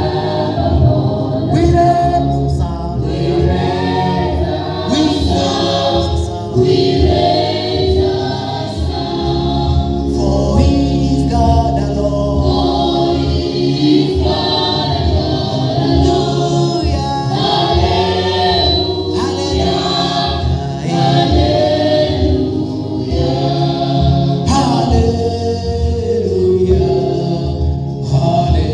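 Gospel worship song: several voices singing together over a steady instrumental backing with a sustained bass.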